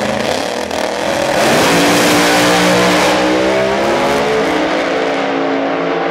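Two supercharged Pro Mod drag cars launching off the start line at full throttle. About a second in the engines get louder and their pitch climbs as the cars accelerate away, stepping and climbing again a couple of times.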